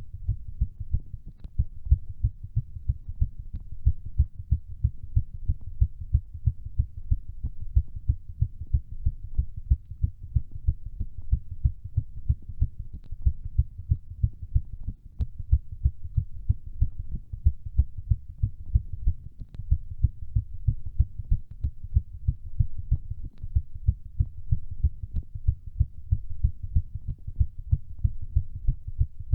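Human heartbeat beating fast in a steady, even rhythm of low thuds, its rate raised by hard exercise.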